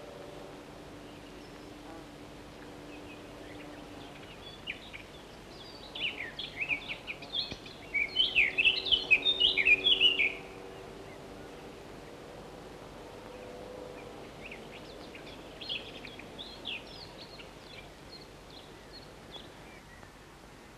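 Chickadee calling: runs of rapid high chattering notes, loudest and densest about halfway through, then fainter scattered notes near the end.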